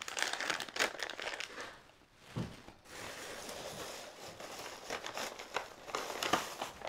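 Crinkly plastic snack bag crackling as it is handled and put down. A soft knock comes about two and a half seconds in, then faint rustling of packaging as the next bag is picked out.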